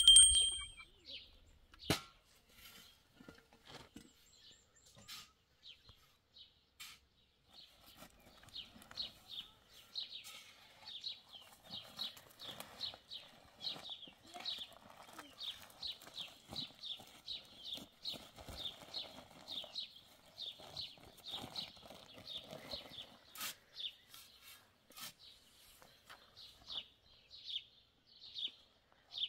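A bird chirping over and over, short high chirps about two a second, starting several seconds in. A few sharp knocks or taps are scattered through it.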